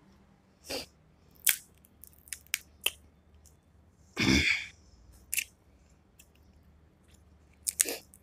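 Close-up eating of crab legs: scattered sharp cracks and snaps of shell with wet chewing and sucking. A louder breathy sound comes about four seconds in.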